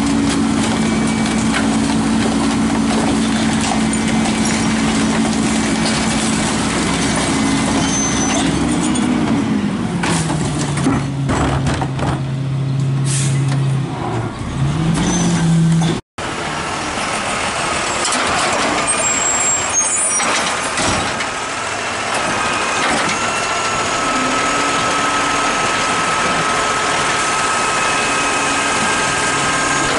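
A McNeilus rear-loading garbage truck running with its hydraulic packer working: the engine holds a steady speed, drops in pitch about ten seconds in, then rises again, with air hissing in the middle. After a sudden break, an automated side-loading garbage truck runs steadily, with a faint steady whine near the end.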